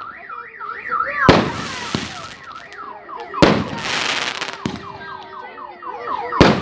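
SU-100 consumer firework battery firing: shells whistle with warbling, then falling, tones, broken by three sharp bangs, with a burst of crackling after the middle bang.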